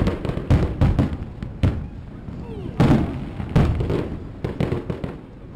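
Aerial firework shells bursting overhead in a quick run of bangs and crackles, loudest about three seconds in.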